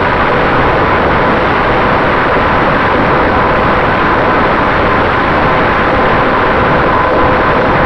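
Finwing Traveler RC plane in steady cruise: a loud, even rush of wind over the onboard microphone mixed with the drone of its electric motor and propeller, with a faint steady whine.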